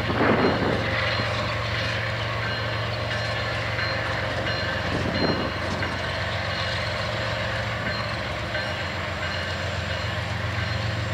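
Diesel freight locomotives passing slowly with a steady low engine drone, with a couple of brief louder swells of noise near the start and about five seconds in.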